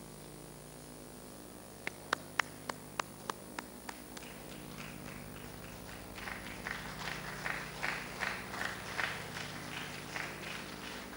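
Handclapping: a run of about eight sharp claps close by, about two seconds in, then softer, more scattered clapping going on at about three beats a second.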